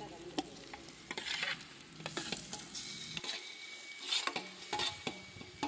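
Raw chicken pieces scraped with a metal spoon off an aluminium plate into a pot of hot oil, sizzling in bursts as they land, with clinks and scrapes of the spoon against the metal plate and pot.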